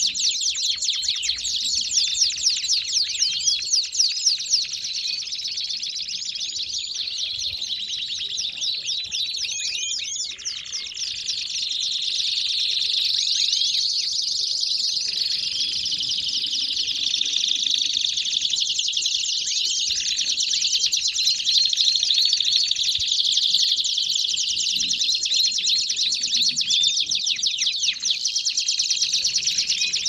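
Domestic canaries singing together: a dense, unbroken chorus of rapid high trills and chirps, briefly thinner about ten seconds in.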